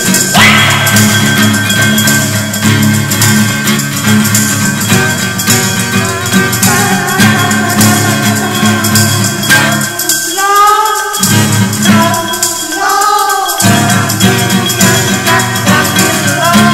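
Background music with a steady beat, its low end dropping out twice for about a second near the middle under a short rising-and-falling melodic line.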